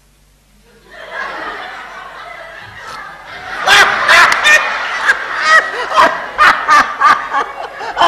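Laughter starting softly about a second in and breaking into a man's loud laugh from about three and a half seconds, a long run of short ha-ha bursts.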